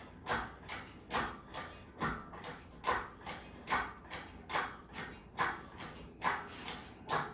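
Even, rhythmic strokes about twice a second, alternating stronger and weaker, from a hoist being worked to lift the small-block Chevy 383 stroker engine out of the car.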